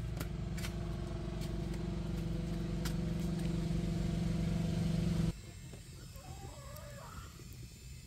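A motor running steadily at an even pitch, slowly growing louder, then cut off abruptly about five seconds in; after it, a quieter background with a short wavering call.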